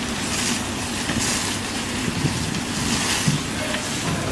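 Fire engine running, a steady low rumble with a hiss over it.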